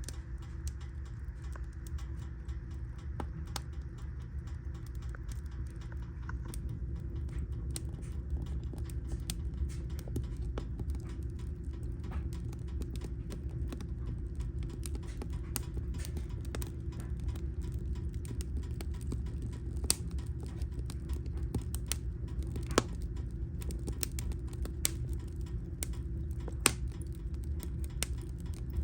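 Wood fire burning in a fireplace, the logs crackling with irregular sharp pops over a steady low rumble. A few louder pops come in the second half.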